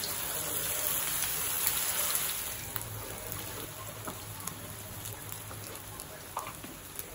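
Hot oil sizzling as potato patties (aloo tikki) shallow-fry in a pan, loudest in the first couple of seconds after a patty goes in and then settling to a lower, steady sizzle. A few light clicks come from a spatula moving the patties.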